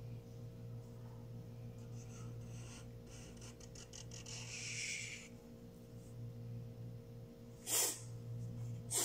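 Felt-tip marker rubbing and scratching across paper for a few seconds as a line is drawn, over a steady low hum. Near the end, a short sharp breath is the loudest sound.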